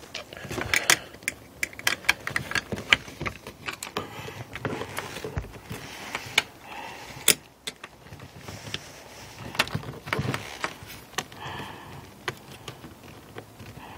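Wrench clicking and rattling against the side mirror's mounting nuts as they are tightened: a run of irregular sharp metallic clicks.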